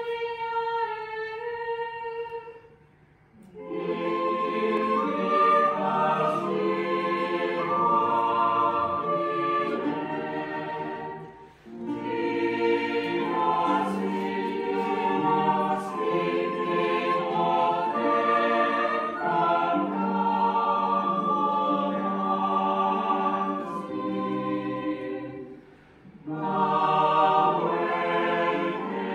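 Mixed early-music chamber choir singing in long many-voiced phrases, with brief breaks between them. It opens with a single held note for about three seconds before the full choir comes in.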